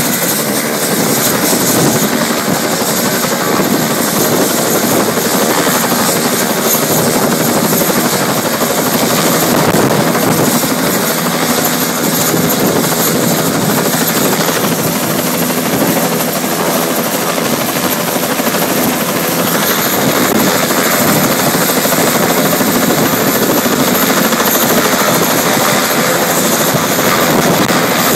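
Helicopter's engine and main rotor running steadily close by while it sits on the ground on its helipad, not yet lifted off.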